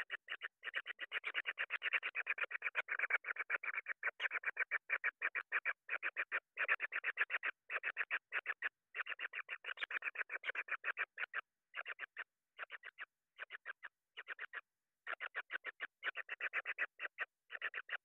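Kingfisher nestling calling: a rapid, rasping run of pulses, several a second. The run is nearly continuous at first, then breaks into short groups with brief pauses from about halfway through.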